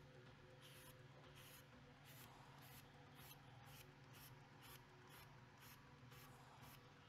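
Fine-grit (1000–1500) sanding sponge rubbed back and forth over a puttied seam on a plastic model part. It makes faint, even strokes, about two a second, over a low steady hum.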